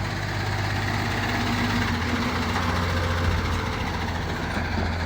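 A vehicle engine idling steadily with an even low hum.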